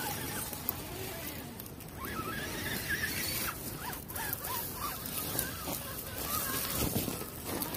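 Axial Wraith 2.2 RC rock crawlers driving over dry leaves and rocks, their small electric drivetrains whirring and the tyres crunching through the leaf litter.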